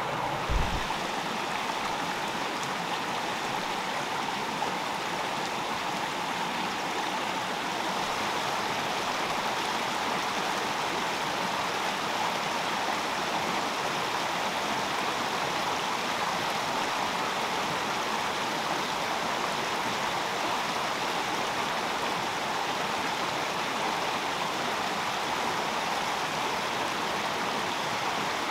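Shallow rocky stream rushing and splashing steadily over boulders, with one brief low thump about half a second in.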